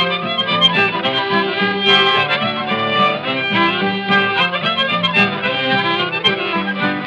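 Old-time music with no singing: an acoustic guitar under a sustained lead melody line, an instrumental passage from an early country recording.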